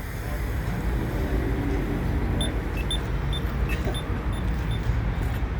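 Accessible pedestrian signal at a crosswalk push button giving short, high beeps about two a second, starting a little over two seconds in, over steady traffic noise from passing cars.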